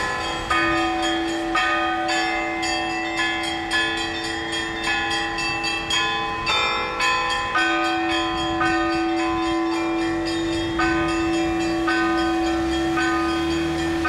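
Russian Orthodox church bells ringing a peal: small bells struck in quick succession, several strikes a second, over the steady ring of a lower bell.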